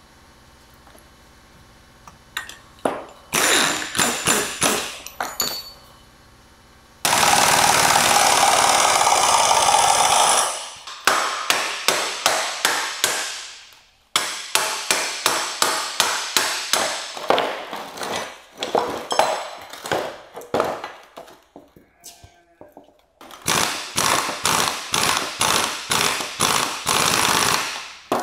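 Impact wrench hammering on the threaded rods of coil-spring compressors fitted to a car's front strut. It comes in several spells of rapid rattling blows, with one unbroken run of about three seconds some seven seconds in, and stops just before the end.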